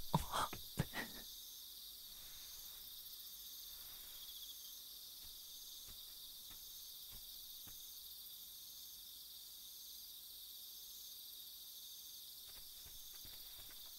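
Crickets chirping steadily in a night-time insect chorus. A few quick footsteps land in the first second.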